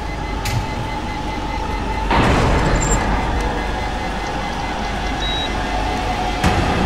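Loud, steady mechanical rumble of a cramped submarine's interior, with a steady high tone held over it. A surge of noise comes in about two seconds in, a short high beep about five seconds in, and a sharp knock near the end.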